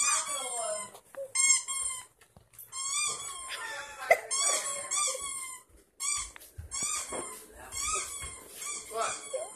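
Squeaky dog toy sound effect: a long run of short, high-pitched wavering squeaks in quick clusters with brief pauses between them.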